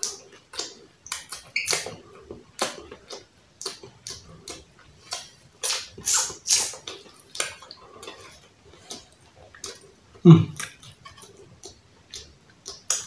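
Close-miked eating sounds: irregular wet lip smacks and chewing as roast turkey is eaten with the fingers, with one short hummed "mm" about ten seconds in.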